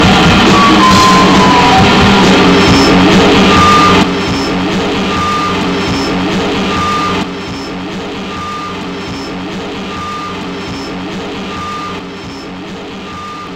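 Live noise-punk band holding a loud, distorted guitar drone, with a short high tone repeating about every second and a half. The sound drops in volume in steps, about four, seven and twelve seconds in.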